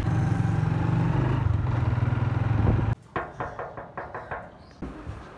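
A small Honda motorcycle engine runs steadily, then cuts off abruptly about three seconds in. A quick run of knuckle knocks on a ribbed metal door follows.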